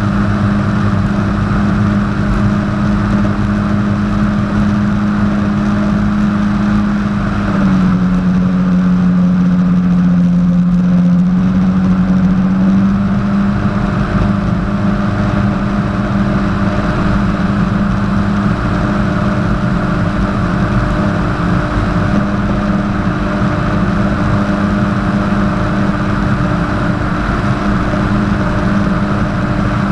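Jet ski engine running steadily at speed over water noise. Its pitch drops a little about eight seconds in and comes back up about five seconds later as the throttle eases and opens again.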